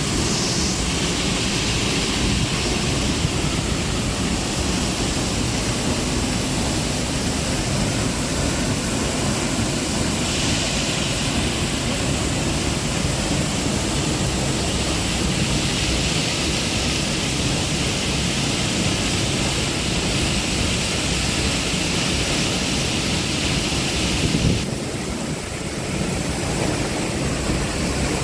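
Steady rushing of a waterfall. The noise drops and changes briefly about 25 seconds in.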